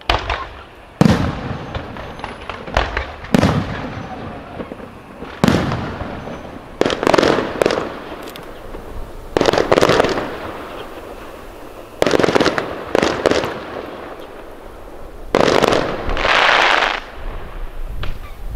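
Aerial firework shells bursting one after another, about ten sharp bangs a second or two apart, each trailing into crackle and echo. Near the end one burst is followed by about a second of dense crackling.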